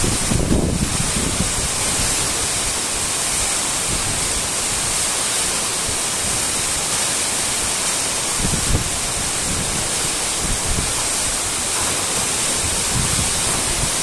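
Tall waterfall's steady rush of falling water, an even hiss. Low wind rumbles on the microphone a few times.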